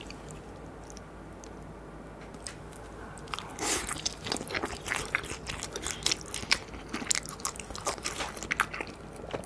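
Close-miked chewing of crispy battered fried eggplant (Chinese-style sweet-and-sour eggplant). Fairly quiet at first, then dense crisp crunching from about three and a half seconds in.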